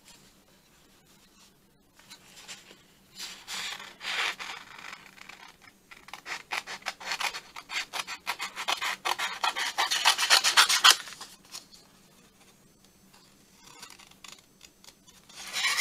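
Small scissors snipping through a sheet of paper in a quick run of short, crisp cuts, loudest from about six to eleven seconds in. Scattered paper-handling scrapes come before and after.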